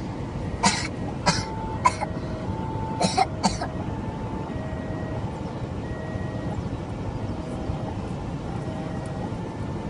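A level-crossing warning bell rings a two-tone chime, alternating a higher and a lower note about every half second. This runs over a steady hum of idling traffic. In the first few seconds someone coughs five short times, and these coughs are the loudest sounds.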